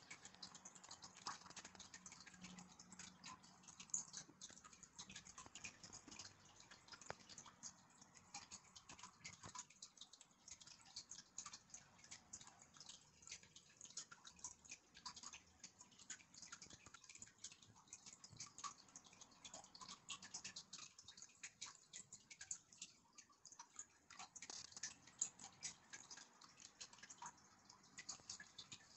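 Faint, irregular small clicks and light paper handling noise as the pages of a printed user manual are held and turned.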